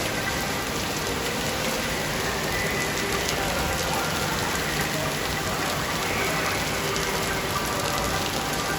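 Steady rain falling, an even wash of noise that holds at one level throughout.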